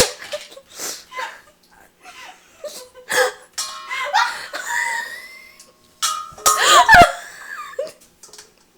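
People laughing hard in fits and bursts, with high squealing laughs that peak about two-thirds of the way through.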